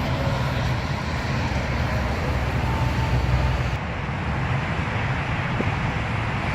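Komatsu D65EX bulldozer's diesel engine running steadily at idle, a low, even drone.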